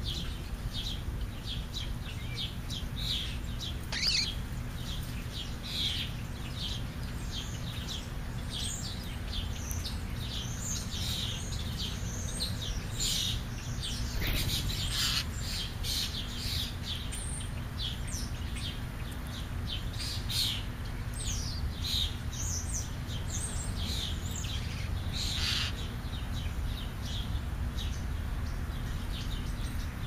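Small birds chirping: many short, high chirps, often several a second, a few louder than the rest.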